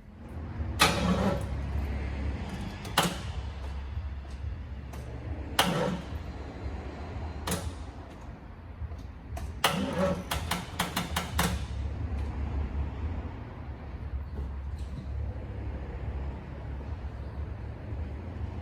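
Chevrolet Caprice engine on a first start attempt, a low steady running hum that sets in at once, with sharp clicks and knocks over it, a quick run of them about ten seconds in.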